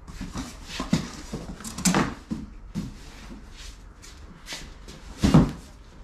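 Cardboard boxes being handled: carried, shifted and set down, with rustling and several knocks. The loudest is a thump about five seconds in.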